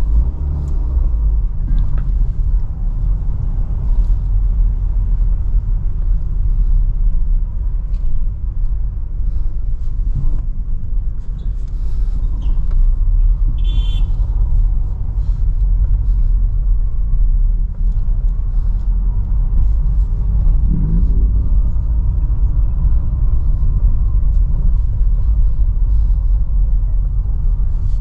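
Steady low engine and road rumble heard inside the cabin of a 2012 Renault Sandero Stepway with a 1.6-litre engine, creeping along in heavy traffic. A brief high-pitched tone sounds about halfway through.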